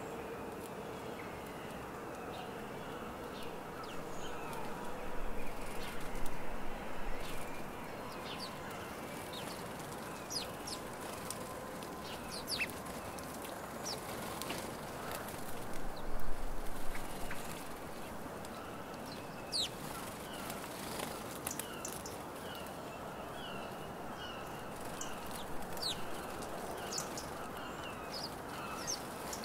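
A flock of house sparrows at a seed feeder: a scatter of short sharp chirps, growing busier in the second half with a run of quick repeated notes, and two louder bursts of wing flapping, about five seconds in and again about sixteen seconds in, over a steady background noise.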